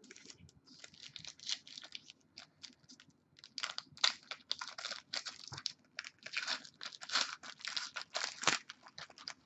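Trading card pack wrapper being torn open and crinkled by hand, a long run of irregular crackling and tearing.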